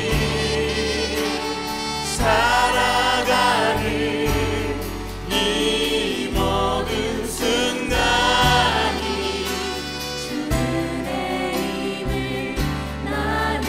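Live worship band music with singing voices, a five-string Alleva Coppolo LG5 electric bass carrying the low line in steady, changing notes.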